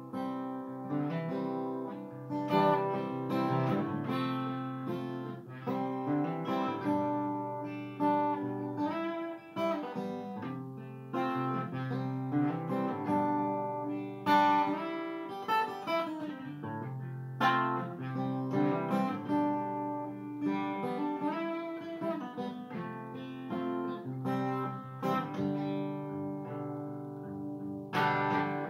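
Solo acoustic guitar strumming chords in an instrumental break of a folk song, with no voice.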